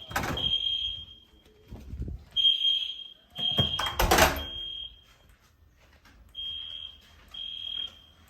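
EST Genesis fire alarm horns sounding the temporal-three evacuation code: high-pitched blasts in groups of three, with a longer pause between groups. The last group is fainter. Two loud thumps land at the start and about four seconds in.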